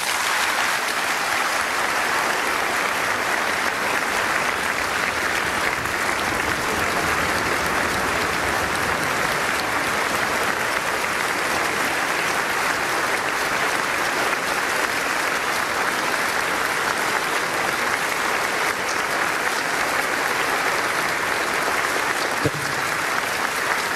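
Large audience applauding steadily in a standing ovation.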